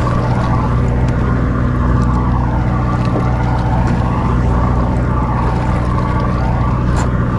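A party fishing boat's engine running steadily with a constant low hum.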